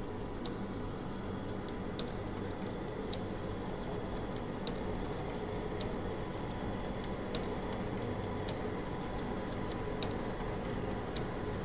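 Canon imagePROGRAF PRO-500 inkjet photo printer printing and feeding a sheet out: a steady mechanical hum with light, irregular ticks.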